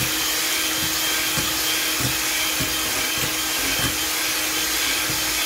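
Sunbeam electric hand mixer running at a steady speed, its twin beaters whisking raw eggs in a glass mixing bowl.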